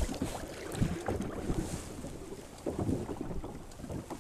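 Wind buffeting the microphone and water slapping against the hull of a small wooden boat on a choppy sea, with scattered light knocks.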